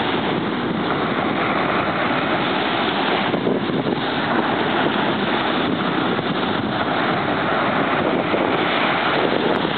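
Steady rushing noise of wind on the microphone mixed with ocean surf on a sandy beach.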